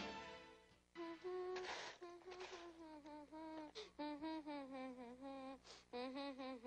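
Background music fades out in the first second, then a boy hums a tune to himself without words: held notes of a wavering melody with short breaks between them.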